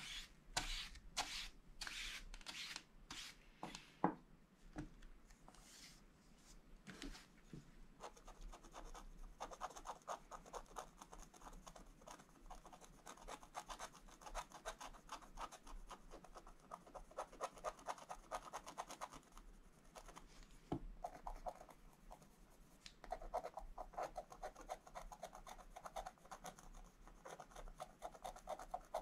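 A bristle brush sweeps across scratch-art paper in quick separate strokes. About eight seconds in, a wooden stylus takes over, scratching the black coating off the paper in rapid short strokes that run on steadily.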